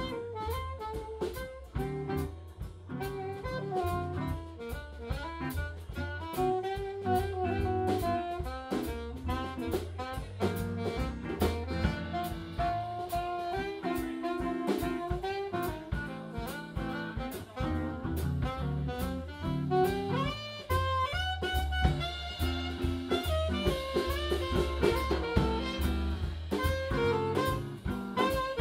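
High school jazz band playing live: a single melodic horn line moves over bass and a drum kit keeping a steady beat.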